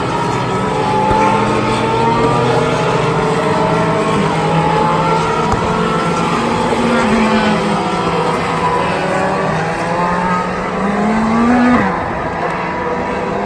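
Several IndyCar 2.2-litre twin-turbo V6 engines running together at low, uneven revs, their notes drifting up and down. Near the end one engine climbs in pitch, then drops off sharply.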